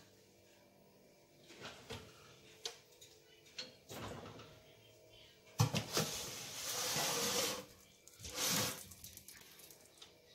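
A round metal baking tray is loaded into an oven: a few small clicks, then a sharp metal knock about five and a half seconds in as the tray goes down, followed by two spells of scraping as the tray and the wire oven rack slide over the metal.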